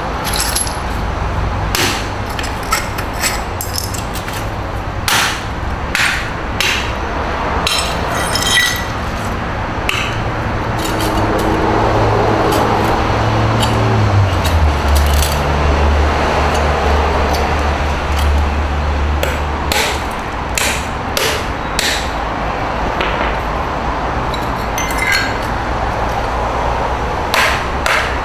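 A hammer strikes a porcelain sink, chipping the ceramic with sharp, irregular knocks. The blows come thick at the start and near the end, with fewer in the middle, over a steady low hum.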